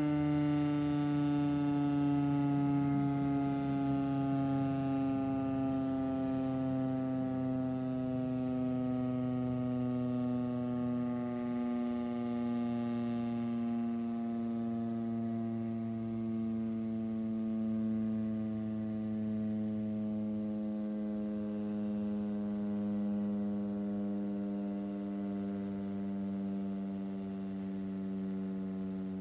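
Federal Signal STH-10 mechanical outdoor warning siren winding down after its alert signal: one long tone that falls slowly and steadily in pitch and gently fades, rising and dipping a little as it goes.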